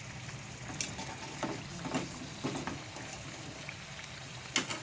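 Sweet potato chunks frying in oil with melting brown sugar, a steady sizzle broken by about five sharp clicks and knocks.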